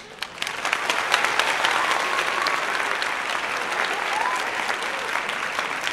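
Audience applause: many hands clapping in a dense, even patter that swells in over the first second and then holds steady.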